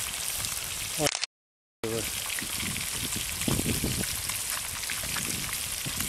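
Fish deep-frying in a pan of hot oil, sizzling steadily. The sound cuts out completely for about half a second, a little over a second in.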